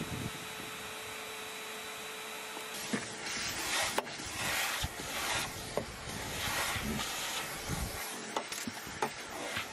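Canister vacuum cleaner running with a steady hum. About three seconds in, it changes to a rougher, shifting suck and scrape as the nozzle is worked over the boot carpet, with a few sharp knocks of the wand.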